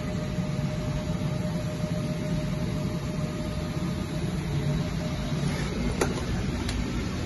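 Steady low machinery hum of a machine shop, with a faint steady tone that fades out about five seconds in and two clicks near the end.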